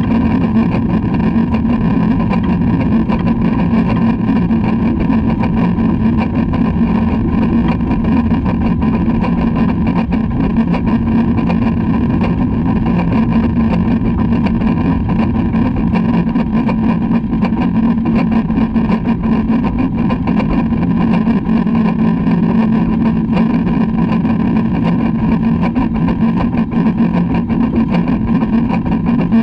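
LMS Black 5 steam locomotive No 45407 on the move, heard from its front buffer beam: a loud, steady, unbroken running rumble of the train on the rails.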